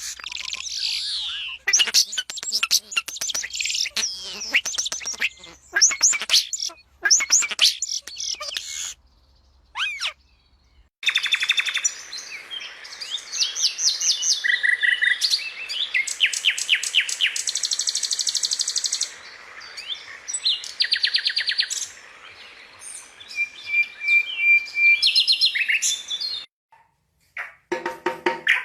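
Birds chirping and singing: high, quick chirps and rapid trills of repeated notes from more than one bird, with a brief pause about nine seconds in.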